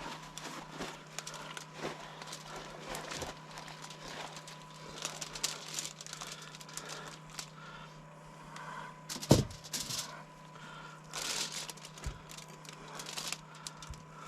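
Knife cutting along a whole hog's backbone: scattered crackling and tearing sounds of the blade working through skin, meat and bone, with one sharp knock about nine seconds in.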